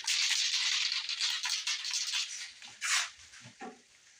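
Aerosol can of spray paint being shaken and sprayed: hissing with a fine rattle for about two and a half seconds, then one short burst of spray just before three seconds in.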